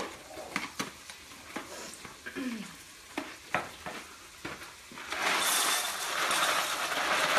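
A cardboard box of dry penne pasta being handled and opened, with small taps and rustles. About five seconds in, the penne is poured into a glass measuring cup: a sudden, dense, steady rattle of hard pasta pouring onto glass.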